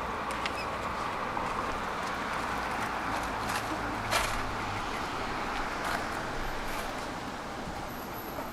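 Tram running along its track: a steady rumble of wheels on rails, with a few sharp clicks and a brief low hum about three to five seconds in.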